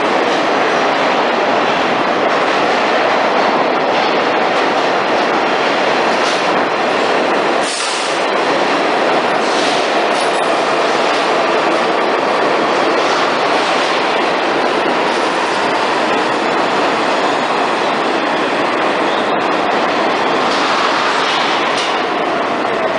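New York City subway train of stainless-steel cars running into and along an underground station platform: a loud, steady rumble and clatter of steel wheels on rails. A faint tone falls in pitch near the end.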